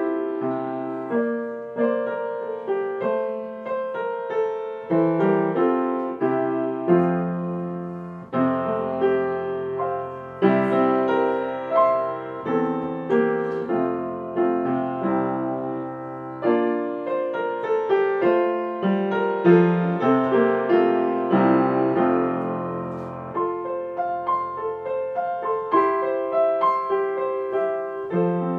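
Piano music: a steady run of struck notes over low bass notes, each note fading after it is played.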